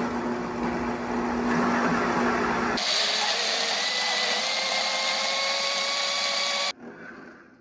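High-powered countertop blender running on mango, dates and ice with the tamper pushed into the jar. About three seconds in, the low churning drops away to a higher, smoother whine as the mix turns to purée. The motor cuts off suddenly near the end.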